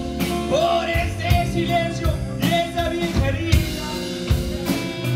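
Live rock and blues band playing: electric guitars, electric bass and a drum kit, with a man singing.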